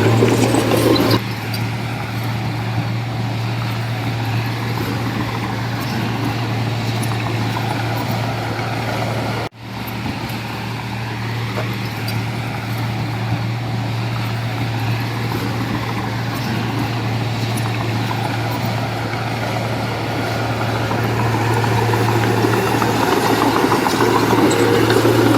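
Heavy diesel machinery engine running steadily with a low hum and mechanical clatter, dipping in level about a second in and building again near the end, with a momentary break about nine and a half seconds in.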